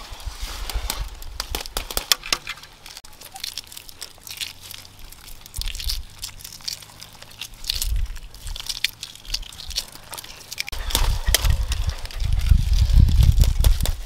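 Shells of boiled eggs being cracked and peeled by hand: a run of sharp crackles and small clicks. A heavy low rumble comes in about three-quarters of the way through.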